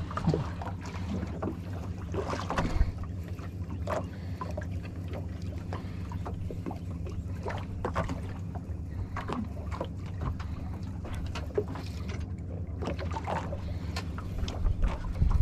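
Small fishing boat's engine running steadily at low revs, with scattered light knocks and clicks throughout.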